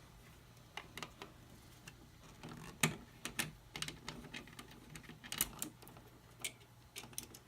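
Irregular small clicks and taps of a screwdriver and metal switch hardware being handled at a wall switch box, the sharpest about three seconds in and again about five and a half seconds in.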